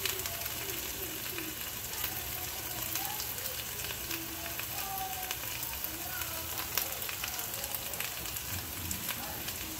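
Potatoes frying in canola oil in a pot: a steady sizzle with scattered small crackles and pops.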